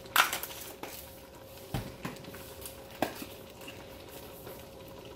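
About five sharp metal clinks and knocks in the first three seconds as a spoon and seasoning containers are handled at a stainless steel stockpot while seasoning is shaken onto simmering collard greens, with a faint steady hum underneath.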